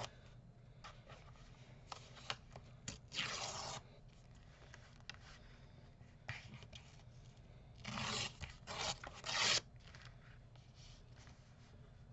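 Sheet-music paper being torn against a ruler's straight edge in short rips, one about three seconds in and a few more near eight to nine seconds, with paper scraping and rubbing on card in between.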